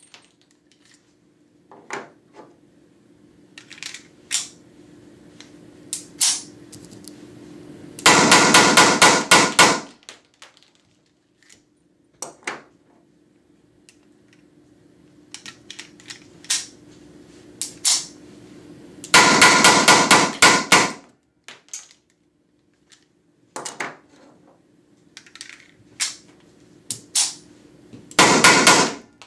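Weihrauch HW94 blank pistol firing Umarex PTS blank cartridges in three rapid strings of shots, each about two seconds long and each emptying a magazine. Between the strings come small clicks of magazine changes and slide handling, over a faint steady low hum.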